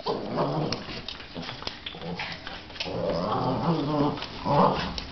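Two Boston terriers play-fighting, growling in rough bursts that grow louder toward the end, with short sharp clicks of scuffling throughout.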